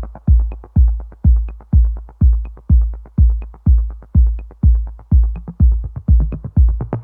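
Electronic dance music: a deep kick drum on every beat, about two a second, with light ticks between the beats.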